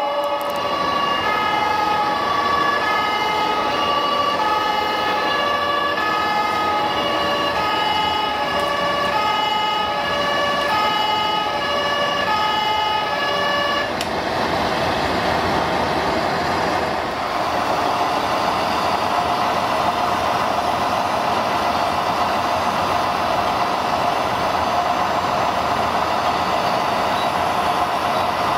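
RC model fire truck's sound module playing a German two-tone siren, alternating between two pitches, with each tone lasting under a second. About halfway through the siren stops and a steady engine-like running sound with a constant hum carries on.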